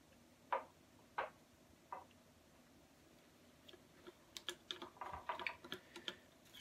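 Faint scraping and clicking of a small hand tool working JB Weld epoxy. Three separate scrapes come in the first two seconds. From a little past the middle there is a quick run of small clicks and scrapes as the epoxy on the mixing card is stirred and scooped.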